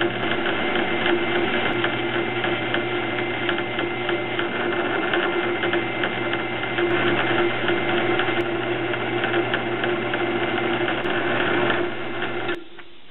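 Drill press running, a 5/16-inch twist drill boring a tap-drill hole into an aluminium tailstock casting: steady motor hum with the noise of cutting, cutting off suddenly about twelve and a half seconds in.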